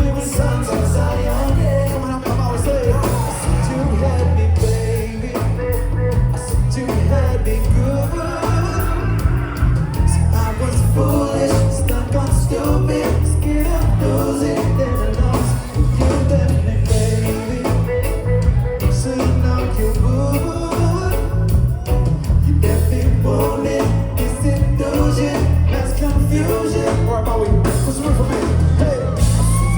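Live reggae band playing a song, with a steady heavy bass line under guitar and keyboard parts.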